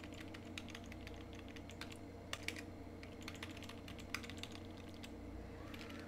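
Typing on a computer keyboard: faint, irregular keystrokes in small runs, over a steady low hum.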